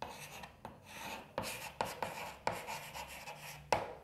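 Chalk scratching on a blackboard as a word is written out in a series of short strokes, with sharp taps of the chalk against the board; the sharpest tap comes near the end.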